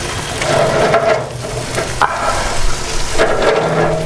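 Sizzling hiss from a hot offset smoker as a rack of beef short ribs is turned around on its grate, with a few clicks and knocks, one about two seconds in.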